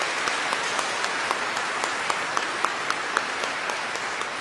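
Audience applauding, a steady patter of many hands with a few individual claps standing out sharply.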